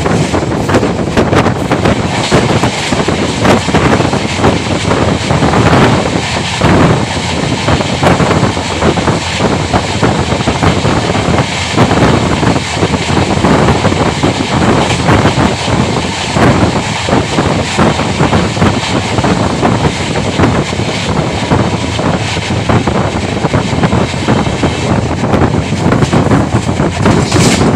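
Sarvodaya Express passenger coach at full speed, recorded at an open doorway: a loud rush of wind with the steady rumble and rapid clatter of wheels on rail. A freight train's wagons pass close alongside on the next track as it is overtaken partway through.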